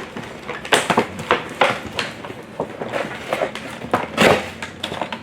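Packaging of a boxed fashion doll being handled and opened: irregular crinkling, rustling and sharp clicks, with a louder knock about four seconds in.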